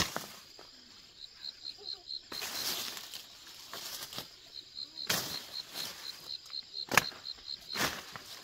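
Irregular rustling swishes of grass being cleared, with a sharper knock at the start and another about seven seconds in. Over them an insect chirps in short runs of quick, high pulses.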